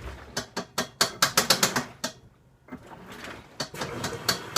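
Home washing machine drum turning with a rapid rattling clatter, quick runs of sharp clicks with a short lull about two seconds in. It is an abnormal noise that the owner puts down to something tangled or catching as the drum turns.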